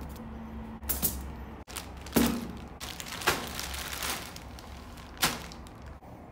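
Plastic courier mailer bag crinkling and rustling in bursts as it is handled and set down, four or five separate rustles over a steady low hum.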